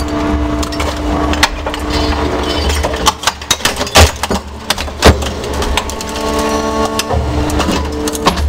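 T-BREAK M scrap crusher running with a steady hum while crushing car electronic control boxes, their plastic casings and circuit boards cracking and snapping. Two loud sharp cracks stand out, about four and five seconds in.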